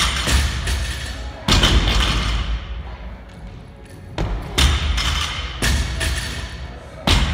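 Heavy gym-equipment thuds, about five of them at uneven intervals, each with a short ringing tail, over faint background music.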